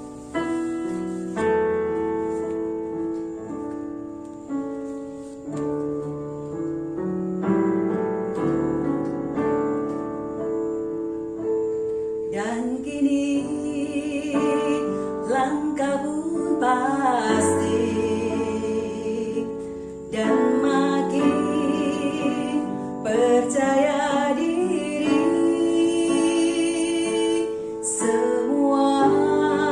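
Piano playing alone, then a woman's singing voice with vibrato comes in about twelve seconds in over the piano accompaniment.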